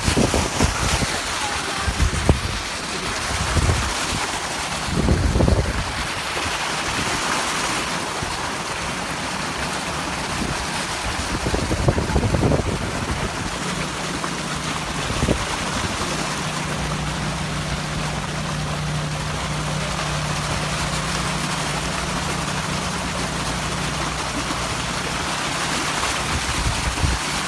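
A vehicle moving through a flooded street: steady rushing and splashing of water, with wind on the microphone. A steady low engine hum comes in about halfway through.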